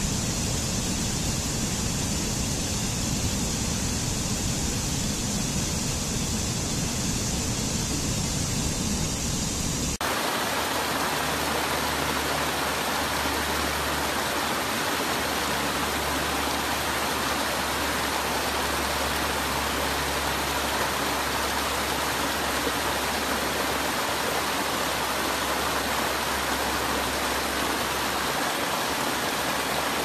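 Steady rush of water cascading over rocks in a stream. About a third of the way in it cuts to a different stretch of falling water with a brighter hiss.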